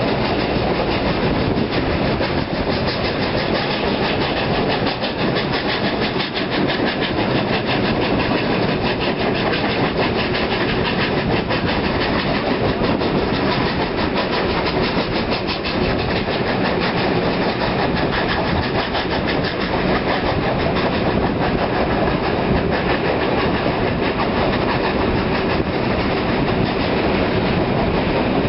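Three steam locomotives, NSW 32, 35 and 36 class 4-6-0s, triple-heading a passenger train past on the climb, their exhausts chuffing hard in a rapid, overlapping beat. The train's wheels clatter over the rails as it goes by.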